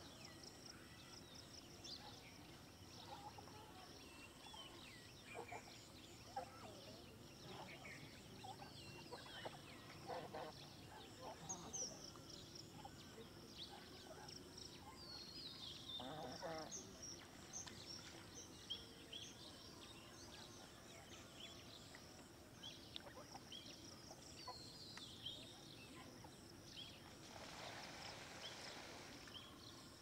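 Faint outdoor ambience of birds calling: scattered short chirps and calls, with a few louder, lower calls about ten and sixteen seconds in, and a brief rush of noise near the end.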